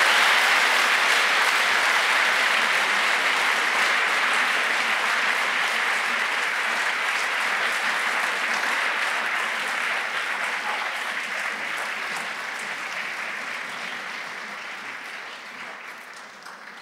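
Audience applauding, a dense, sustained clapping that gradually fades and dies away at the end.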